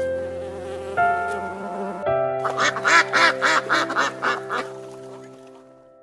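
Duck quacking, a quick run of about eight to ten quacks lasting a couple of seconds, over background music with sustained notes.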